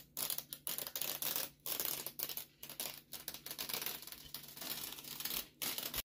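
Masking tape being peeled off the edge of a wall freshly painted with chalkboard paint: a crackling, tearing rip that comes in a run of pulls with brief pauses between them.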